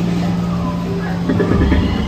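Ambient soundscape of the Na'vi River Journey dark ride: a steady low hum under faint music, with a deeper rumble coming in about one and a half seconds in.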